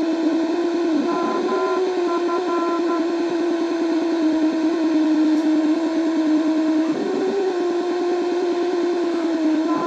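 Old shortwave radio giving out a steady, buzzing electronic drone that wavers in pitch, dipping briefly about a second in and again about seven seconds in. Short broken higher beeps sound over it from about one to three seconds in and again at the very end. The uploader cannot tell whether this is radio noise or a transmission such as a number station.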